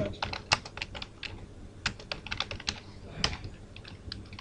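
Computer keyboard being typed on: irregular key clicks in short runs with brief pauses.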